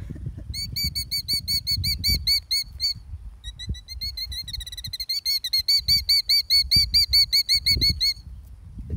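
Killdeer giving rapid, repeated high alarm calls, about five a second, in two long bouts with a short break near the third second. This is the alarm of a parent killdeer defending her nest from a person close by.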